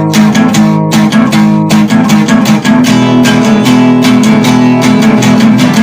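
Guitar music: fast, steady picking or strumming over sustained notes, with no voice.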